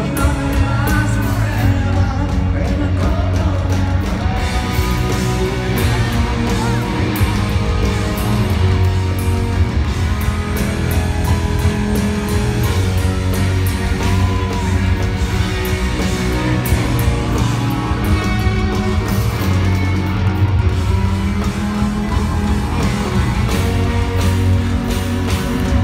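Live rock band playing loudly through a concert PA, heard from the audience: grand piano with drums, electric guitar and singing over the top.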